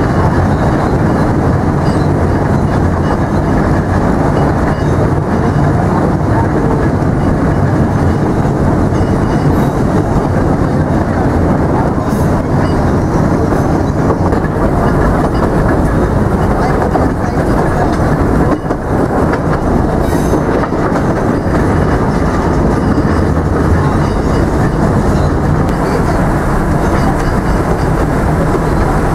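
Narrow-gauge forest railway train running along the track, heard from aboard a carriage: the steady, loud running noise of the wheels and coaches.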